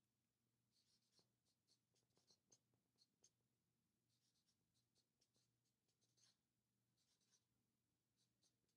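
Faint squeak and scratch of a felt-tip marker writing on a flip-chart paper pad, in several short runs of strokes with pauses between the words.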